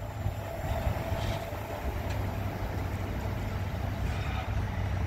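Freight train of enclosed car-carrier wagons rolling past on the rails: a steady low rumble with a faint whine and a few light clicks.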